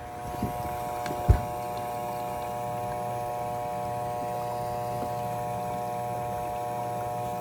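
Bosch dishwasher wash motor humming steadily without turning: the motor is trying to run but cannot, because its capacitor is blown. A single short knock sounds about a second in.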